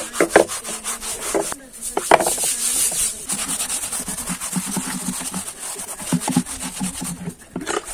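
Steel-wool scrubber rubbing hard over a wet, soapy flat stone slab in quick scraping strokes, with water running from a spout onto it. The stone is being washed clean so it can serve as a griddle.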